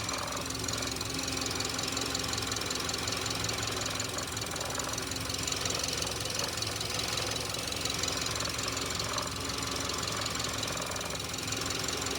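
Freshly rebuilt Subaru boxer engine running steadily with a fast, even knocking rattle, a sign that something is wrong inside after the rebuild.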